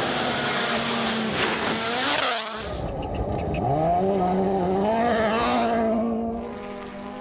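Rally car engines at full throttle. One car passes with its pitch dropping; after an edit, another accelerates hard with its engine note climbing steeply, holds, then fades as it moves away.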